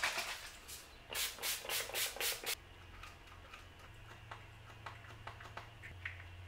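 About six quick rubbing strokes in a row, then soft clicks and taps as a small skincare bottle is handled and product is dispensed into a palm.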